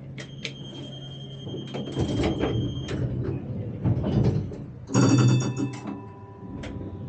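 Tram cab: a steady high electronic beep for nearly three seconds, then, about five seconds in, the ringing chime of the on-board announcement system that heralds the next-stop announcement, over the low rumble of the tram running.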